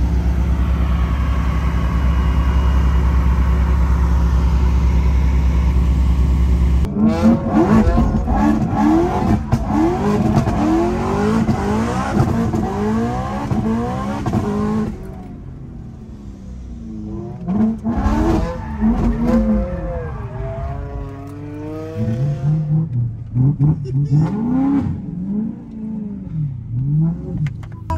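Supercharged, straight-piped BMW M3 E90's 4.0 V8 revving hard from inside the cabin, its pitch rising and falling again and again as it is driven through the gears. This follows a steady low engine drone during the first seven seconds.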